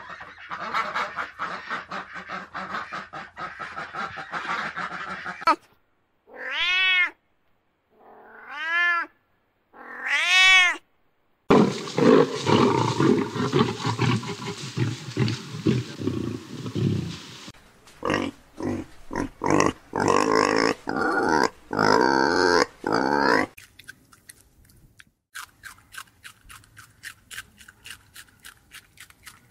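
A run of different animal calls one after another: a fast series of calls, then three separate rising-and-falling cries, then a long rough lion growl, a string of pulsed calls, and finally rapid clicking.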